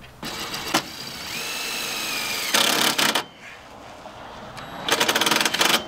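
Cordless drill driving a screw into the bus's metal roof deck in two runs: a longer run of about three seconds with a steady motor whine that climbs slightly and then holds, and a short, louder burst near the end.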